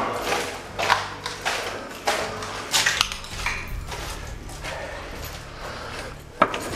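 Footsteps crunching and scuffing over rubble and grit on a tunnel floor, a step about every half second, with a low steady hum underneath and a sharp click near the end.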